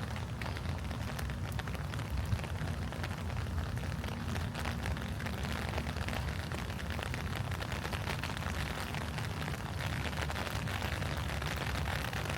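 Steady rain pattering on leaves and a forest path, many small drop ticks over an even hiss, with a constant low rumble underneath.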